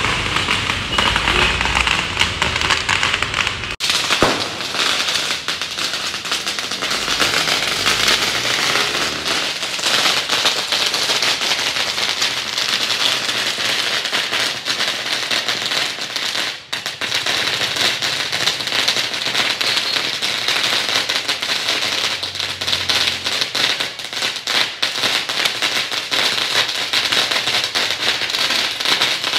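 Firecrackers going off on the street, with many small bangs and pops running together into a dense, continuous crackle.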